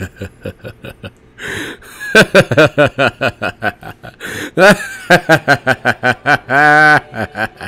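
A man laughing hard in rapid repeated bursts, pausing briefly for breath, and ending in one long drawn-out wavering note near the end.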